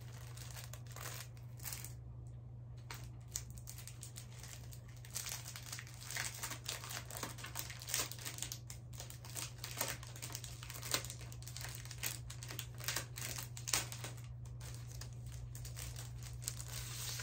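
Crinkly packaging being handled and opened, giving irregular crackles and rustles that grow busier about five seconds in, over a steady low hum.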